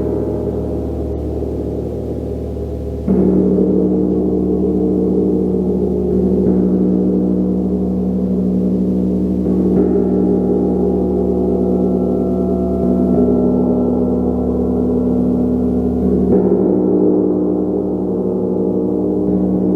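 A gong being struck again and again, about every three seconds. Each new stroke swells the continuous ringing, shimmering wash of overlapping tones, and the stroke about three seconds in is the loudest.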